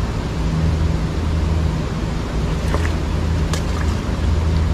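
Steady outdoor noise of water and wind with a low steady hum underneath, while a cast net is drawn back through a shallow stream; a couple of faint short clicks or splashes come near the middle.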